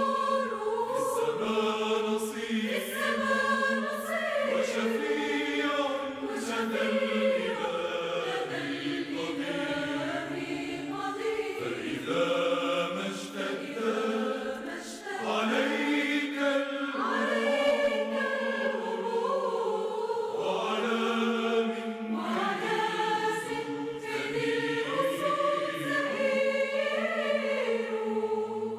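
Mixed choir of women and men singing a Maronite hymn to Saint Maroun, the melody moving over a steady held low note.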